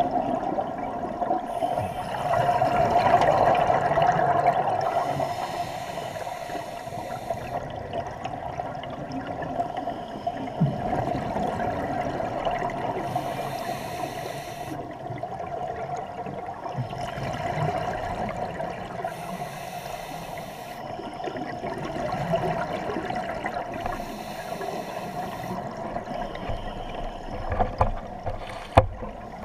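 Scuba regulator breathing heard underwater. Bubbly exhalations surge and fade every several seconds over a steady underwater hiss. A few sharp knocks come near the end.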